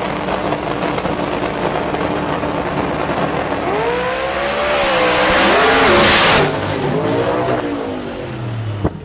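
Drag-race Camaro's V8 engine at full throttle on launch: a loud roar, its pitch wavering up and down from about four seconds in, then cutting off suddenly about six and a half seconds in, followed by more wavering revs and a sharp click near the end.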